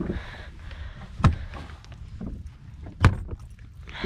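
Two sharp knocks on a fishing boat's deck, about two seconds apart, over a steady low rumble of wind on the microphone.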